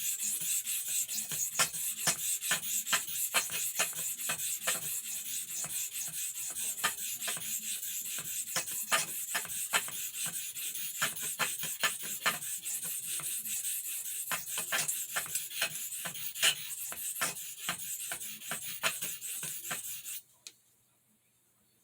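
Steel pocketknife blade stroked over a Dan's soft Arkansas whetstone: a long run of quick, even scraping strokes that stops near the end. The edge is being worked until a burr forms.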